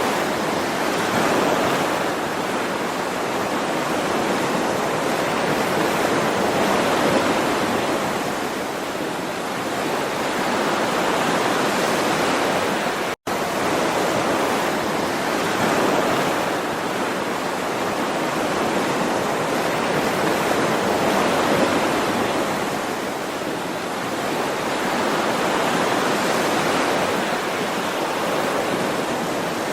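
Ocean surf: a continuous wash of waves that swells and ebbs slowly every six seconds or so. A split-second dropout to silence comes about 13 seconds in.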